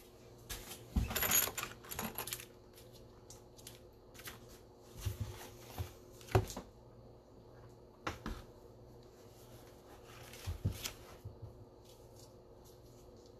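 Scattered light clicks, taps and rustles of handling, the sharpest knock about six seconds in, over a faint steady hum.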